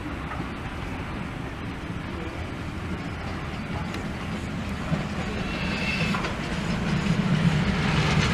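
Steam locomotive 431.032 hauling a train of red railcars, the running and wheel noise growing steadily louder as it draws near.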